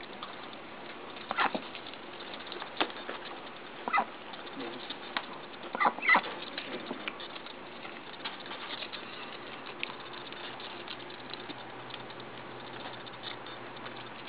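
A Khaki Campbell duck's bill clicking and snapping as she picks french fries out of a towel-lined cardboard box and eats them: a string of short sharp taps, a few louder ones with brief squeaks around four and six seconds in, then lighter ticks.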